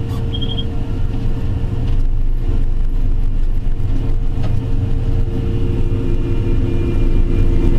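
Miller Nitro 5333 self-propelled crop sprayer running steadily in the field: a constant low engine rumble with a steady hum. A brief high beeping of a few quick pips comes about half a second in.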